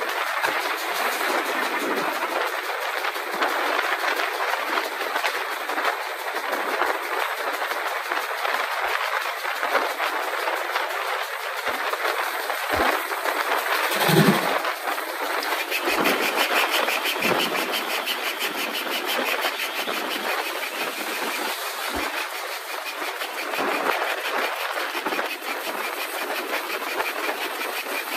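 Steam-hauled train behind GWR 4200 class 2-8-0 tank engine No. 4270 running at speed, heard from an open coach window: a steady rush of wind and rolling wheels with a few knocks from the rail joints. There is a brief louder surge about halfway through.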